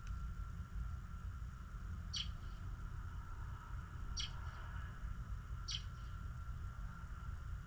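A small bird repeating a single short, high chirp three times, about every one and a half to two seconds, over a steady low rumble.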